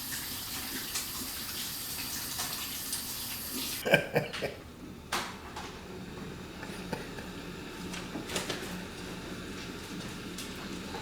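Water running from a tap, shut off sharply about four seconds in, followed by a few knocks and clinks.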